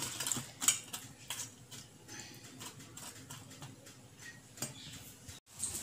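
Faint scattered ticks and light splashes as a hand presses fried dahi vadas down into water in a steel bowl to soak out the frying oil, most of them in the first second or two.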